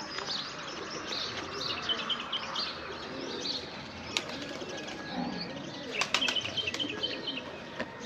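Pigeons flapping their wings as they fly about a pigeon tower, with small birds chirping throughout and a few sharp flutters about four and six seconds in.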